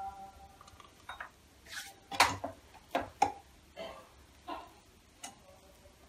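A series of light clicks and short crackling rustles from hands handling puffed rice and jaggery laddus and setting them on a ceramic plate, the loudest tap a little past two seconds in.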